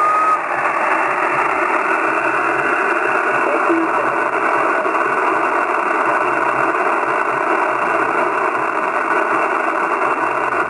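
Steady hiss of band noise from an Icom IC-756PRO III shortwave transceiver's speaker, tuned to 14.275 MHz on the 20 m band between transmissions, heard only within the receiver's narrow voice passband. A short whistle sounds right at the start.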